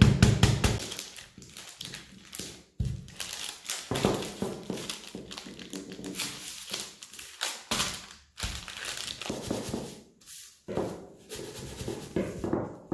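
Wooden rolling pin beating a block of margarine through parchment paper in quick, even taps that stop about a second in. Then parchment paper crinkles and rustles as it is folded around the margarine and the rolling pin is rolled over it, with a few soft thuds.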